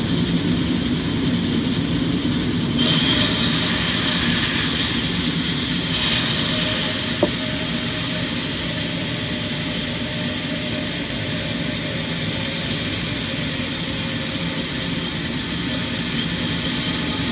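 Sawmill machinery running steadily, its higher-pitched noise growing louder about three seconds in and again about six seconds in, with a single sharp click near the middle.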